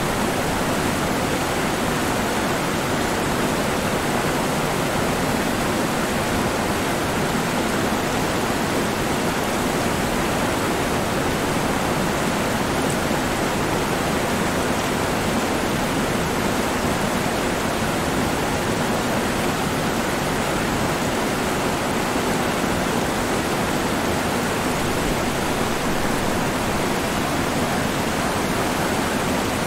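River water flowing and rushing around the elephants' legs: an even, unchanging rush with no separate splashes or calls.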